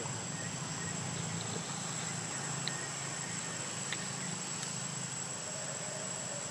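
Steady outdoor background: a low hum with a constant high-pitched whine over it and a few faint clicks.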